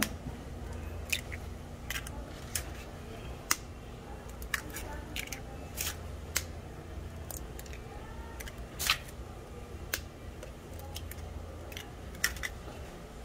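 Eggshells cracking as eggs are broken one after another into egg-bread molds: about a dozen sharp, irregular cracks and clicks.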